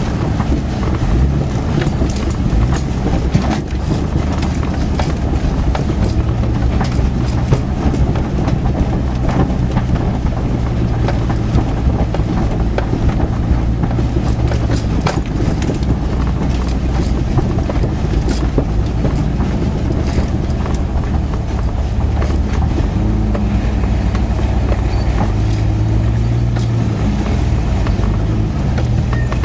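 1989 Jeep Cherokee's engine running at trail speed, heard from inside the cab, its note rising for stretches as it pulls. Frequent short rattles and knocks from the truck's body as it crawls over rough, rocky ground.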